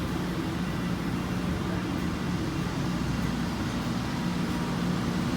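Steady low machinery hum with a constant drone, even and unchanging throughout.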